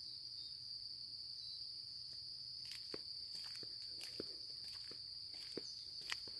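A steady high-pitched insect chorus, like crickets, trills without a break. From about halfway in, footsteps on the park path come through as soft irregular crunches, about two a second.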